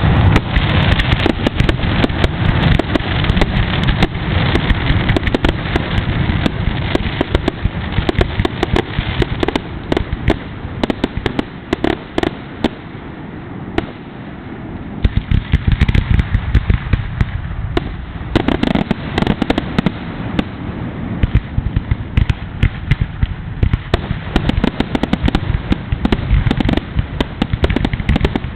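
Fireworks finale: a dense, continuous barrage of aerial shell bursts and crackle, thinning out for a few seconds near the middle before building again.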